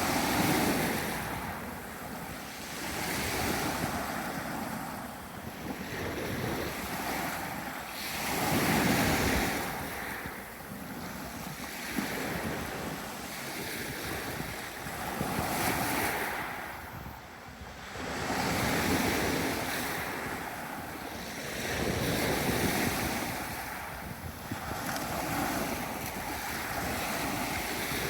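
Sea waves breaking and washing up a beach, the surf swelling and fading in surges every few seconds.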